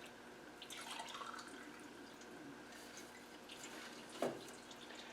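Petrol dripping and trickling faintly out past a leaking exhaust valve in a Ford Ranger V6 cylinder head filled with fuel: the valve is not sealing, which may cause the cylinder's compression loss. A soft knock about four seconds in.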